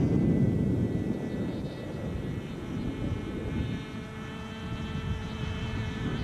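A 550-size NOTAR model helicopter flying overhead: a steady high engine whine over the rushing of rotor and wind. The whine stands out more clearly from about halfway through.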